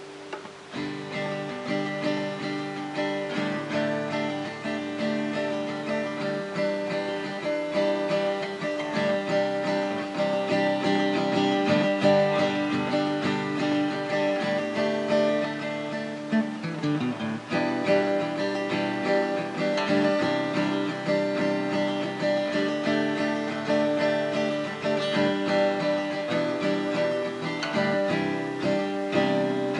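Acoustic guitar playing: a continuous run of plucked and strummed chords with notes ringing on between strikes.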